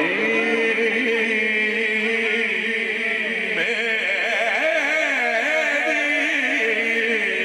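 A man chanting a naat, a devotional Urdu poem in praise of the Prophet, into a microphone over loudspeakers. He holds long notes and bends them with wavering ornaments.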